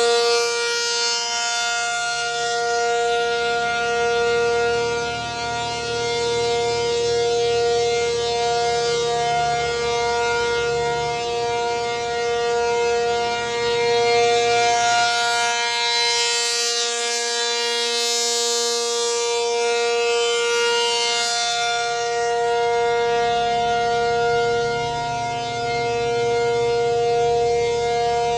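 American Signal Corporation T-135AC rotating dual-tone outdoor warning siren sounding a steady Alert signal. Two tones are held at a constant pitch, forming a chord, and they swell and fade in loudness as the siren head rotates.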